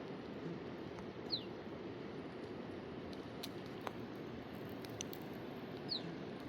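Steady rush of a full-flowing river. Two short high chirps that fall in pitch come through, about a second in and again near the end, along with a few faint clicks.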